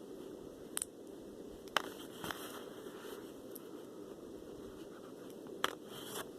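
Small plastic building pieces being handled and pressed together: a few sharp plastic clicks spread out, and a short rustle near the end.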